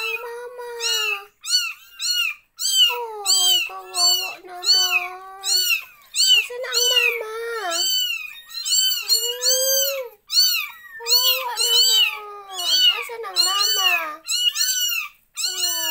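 A litter of young kittens mewing constantly: many short, high-pitched, arching cries overlapping one another with hardly a pause.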